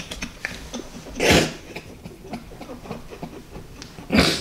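People laughing hard, in breathy, wheezing fits rather than voiced laughs, with two loud gasping bursts about a second in and near the end.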